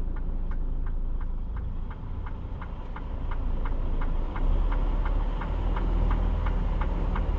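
Semi-truck's diesel engine rumbling low inside the cab, growing louder about four and a half seconds in, with a turn-signal or hazard flasher relay ticking steadily about three times a second.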